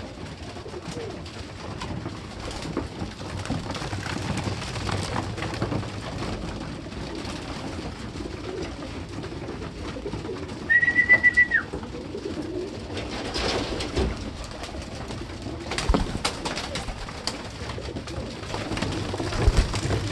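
A flock of racing pigeons cooing while they feed at a trough, with a few short knocks of pecking and jostling at the trough. A short, high, rapidly pulsing chirp sounds once, about eleven seconds in.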